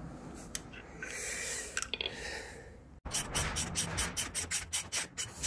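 Puller's centre screw being wound in with an adjustable wrench against a tight crankshaft timing-belt pulley: short metal-on-metal rasping strokes, about four a second, starting abruptly about halfway through after a few faint metallic clicks.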